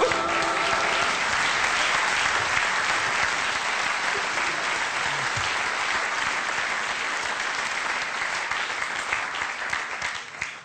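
Studio audience applauding, a long steady round that dies away near the end.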